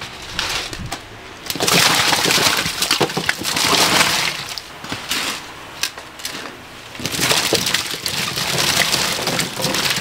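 Husked corn cobs poured from a plastic crate into a big pot of boiling water, clattering against each other and the pot and splashing. It comes in two pours: one from about a second and a half in, and a second starting about seven seconds in.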